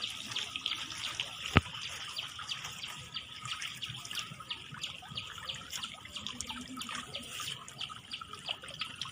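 Water splashing and dripping as a bamboo-poled fishing net is worked in the water: a constant patter of small drips, with one sharp click about a second and a half in.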